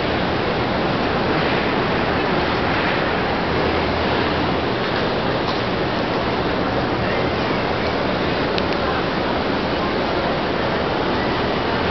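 Steady crowd noise from a large gathering of pilgrims, many voices blended into one even wash with no single words standing out.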